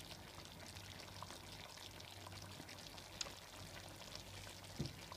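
Chop suey vegetables in thickened sauce simmering in the pan, a faint crackle and bubbling over a low steady hum, with a small knock near the end.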